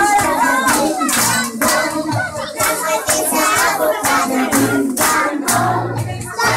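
Music playing: a song with singing over a beat and repeated bass notes.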